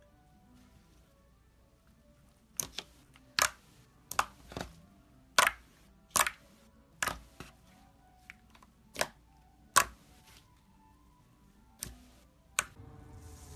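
Slime being squeezed and poked, giving off a dozen or so sharp clicking pops at uneven intervals, with faint background music under them.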